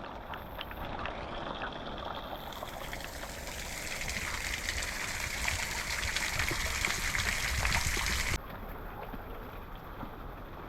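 Mountain bike rolling over a soaked trail in the rain: a steady wet hiss of tyres through water and mud with scattered small clicks and rattles. The noise drops sharply near the end.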